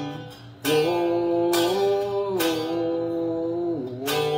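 Electric guitar strumming chords, with four strokes, each left ringing before the next.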